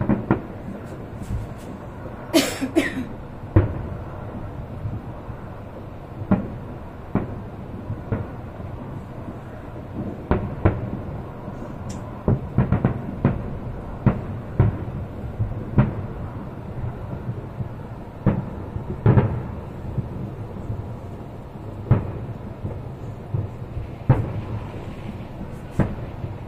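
Fireworks going off: irregular booms and pops, some in quick clusters, with a louder, sharper bang about two and a half seconds in.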